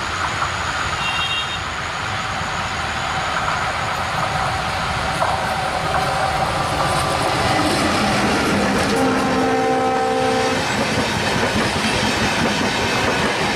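Train running with a steady rumble and wheel clatter; a horn sounds for about two seconds, about nine seconds in.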